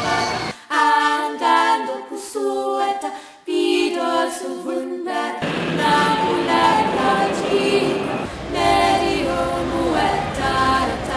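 A cappella singing: several voices singing in harmony, with no instruments heard.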